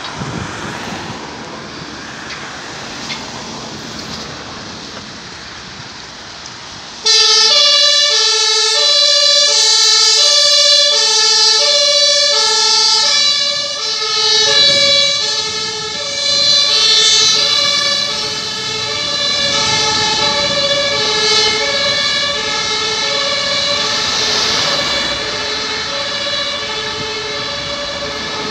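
An ambulance's compressed-air two-tone horn (German Martinshorn) sounding on an emergency run: it switches on suddenly about seven seconds in and alternates steadily between a low and a high note, loud at first and somewhat fainter later as the vehicle draws away. Before it starts there is only the engine and traffic noise of the street, with wind on the microphone.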